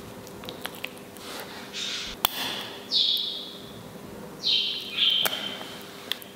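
Metal tweezers pulling pin bones from raw salmon steaks on a wooden board, with a few sharp clicks. Two high, hissy squeaks, each falling slightly in pitch, stand out about three seconds in and again about four and a half seconds in.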